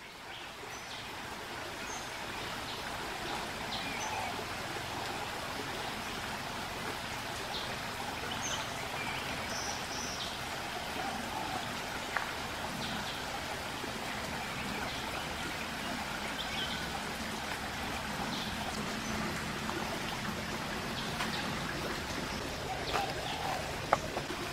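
Shallow stream flowing steadily over rocks, with scattered short bird chirps. A few sharp knocks cut through, the loudest near the end.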